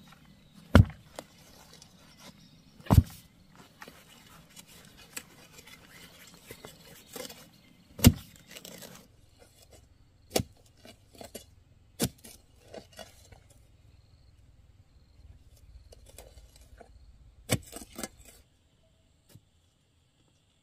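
Metal digging bar jabbed down into dry, hard soil around a wooden stake: about six heavy strikes at uneven intervals, with scraping and rustling of soil and twigs between them.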